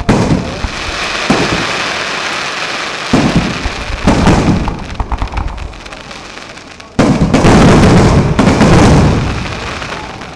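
Fireworks display: aerial shells bursting in repeated booms with crackling between them, building to a loud, dense barrage about seven seconds in that lasts around two seconds before fading.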